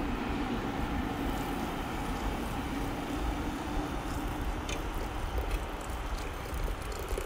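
Water pouring in a steady stream into a pot of simmering liquid on the stove, a constant rushing and bubbling.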